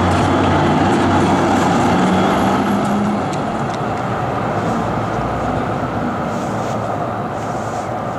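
Vienna Type E2 tram set passing close on street track, its wheels rumbling on the rails. The noise is loudest during the first three seconds, then slowly fades as the tram moves away.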